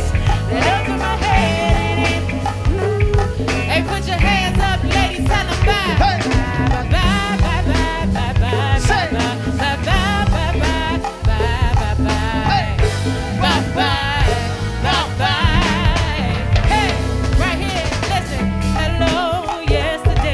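A live band playing a song, with a lead singer over drums and bass.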